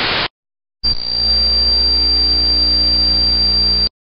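Loud hiss of TV-style static that cuts off abruptly a fraction of a second in. After a short silence, a steady electrical buzz with a thin high whine for about three seconds, cutting off sharply.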